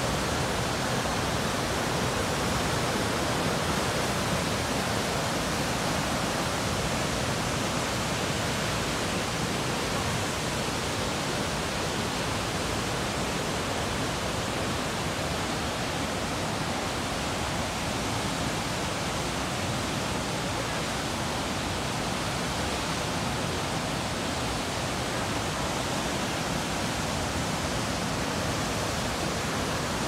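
Waterfall in full spate: a loud, steady rush of falling and churning whitewater.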